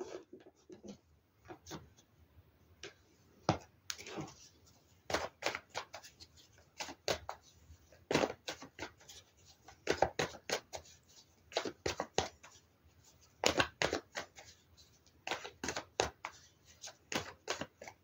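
Tarot cards being shuffled and handled: a run of short, crisp snaps and flicks in irregular clusters.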